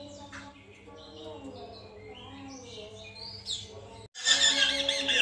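Poksay mantel laughingthrush song: scattered short chirps and whistles, then after a sudden break about four seconds in, a much louder rapid chattering.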